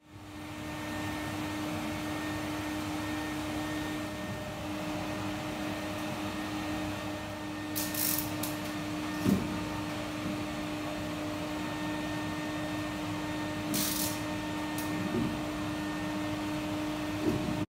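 Water-filtration vacuum cleaner running steadily with a constant hum, its long wand drawing along a curtain top. There are short bursts of hissing air about 8 and 14 seconds in, and a few light knocks.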